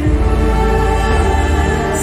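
Background music: a slow, sustained ambient synth pad with held chords.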